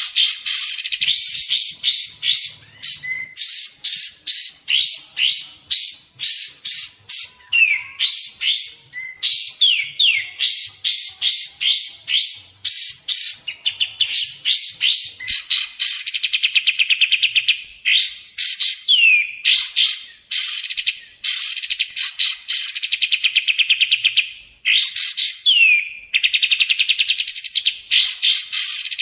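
Kapas tembak bird song from a lure recording: loud, fast rattling trills repeated one after another with short breaks, and now and then a single falling whistled note.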